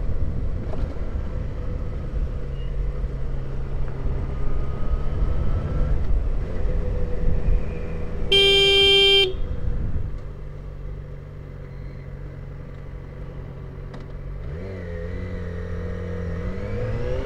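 Motorcycle engine running through traffic with wind rumble on the microphone. About eight seconds in a horn sounds once for about a second, the loudest sound, as a car cuts across in front. Near the end the engine pitch rises as the bike accelerates.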